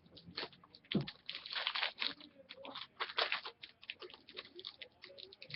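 Crinkling and rustling of trading-card packaging and cards being handled, a dense run of short crackles and small clicks.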